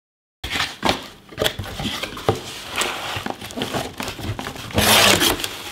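Cardboard packaging being handled: an inner box slid out of its outer sleeve and its flaps opened, with irregular clicks and scraping, starting about half a second in. A louder stretch of crinkling comes near the end.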